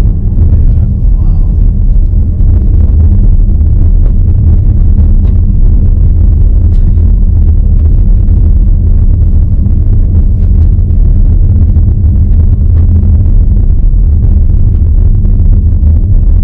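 Inside a car's cabin, steady low road rumble from the tyres and running gear on an unpaved gravel road, with faint scattered ticks.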